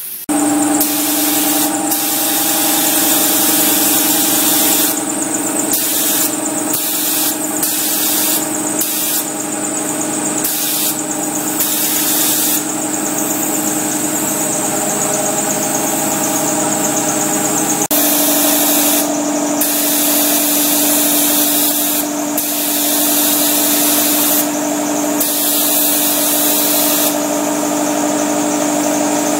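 A loud air compressor running steadily with a constant motor hum. Over it, a gravity-feed paint spray gun hisses on and off in repeated bursts, lasting from under a second to several seconds, as primer is sprayed.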